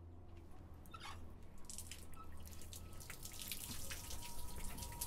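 Water dripping from an old tap: irregular drops that grow louder and more frequent from about a second in, over a low steady hum.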